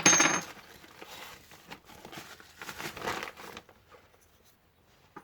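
Packaging crinkling and rustling as a packet of parts is opened and handled, loudest right at the start and dying away after about three and a half seconds.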